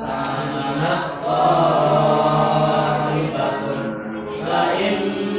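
Singing or chanting voices with a long held note in the middle, over a steady low tone.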